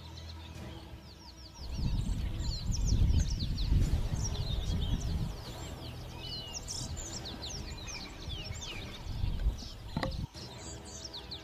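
Many birds chirping and calling in quick short notes, with a loud low rumble of noise for a few seconds starting about two seconds in, and a single sharp click near the end.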